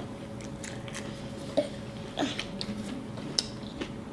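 Quiet eating at the table: a few short, soft clicks and mouth and wrapper noises of people eating fast food, over a faint steady hum.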